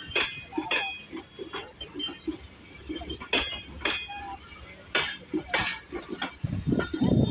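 Passenger train coaches rolling past, their wheels and running gear giving sharp metallic clinks and clanks at irregular intervals over a low rumble. The rumble grows louder near the end.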